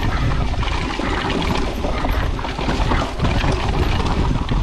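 Wind rushing over the microphone and a 2022 Pivot Firebird mountain bike rattling and clattering over loose rock at downhill race speed, its tyres crunching on gravel with frequent knocks from the chain and suspension.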